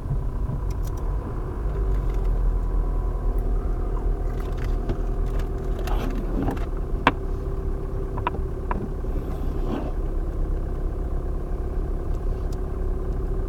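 Steady low engine and road rumble inside a slowly moving car, with a few light clicks and knocks about halfway through.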